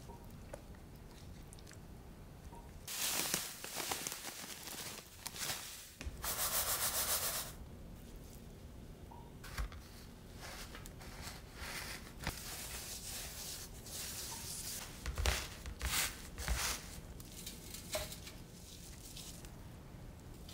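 Gloved hands coating pork cutlets in panko breadcrumbs in a stainless steel tray: irregular bursts of dry rustling and rubbing, with a few sharp taps in the second half.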